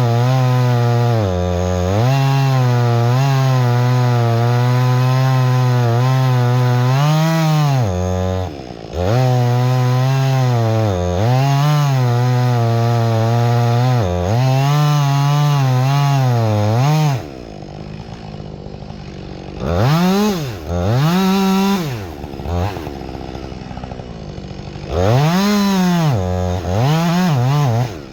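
Husqvarna 562XP two-stroke chainsaw cutting wood, held at a steady high rev under load with a few brief dips, for about 17 seconds. It then drops to idle, with several short throttle blips near the end.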